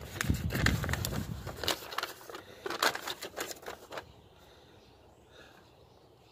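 A sheet of paper being unfolded and handled, crackling and rustling for about four seconds before stopping.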